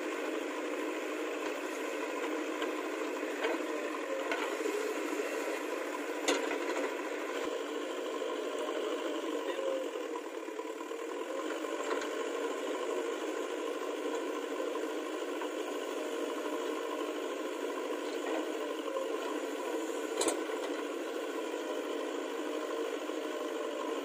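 JCB 3DX backhoe loader's diesel engine running steadily while working its hydraulic backhoe arm, with the engine note wavering under load and a few sharp knocks from the bucket, the loudest about six and twenty seconds in.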